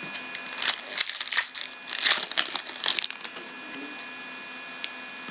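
Foil wrapper of a hockey card pack crinkling as it is torn open, a run of crackles lasting about three seconds that stops about three seconds in.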